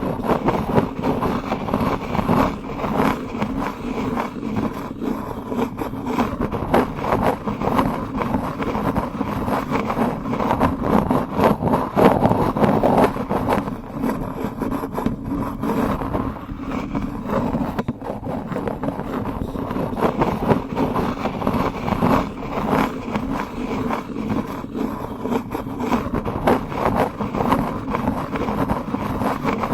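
Close-up wooden spoon sounds for ASMR: continuous dense scraping and rubbing with many small clicks, a low rumbling texture without pauses.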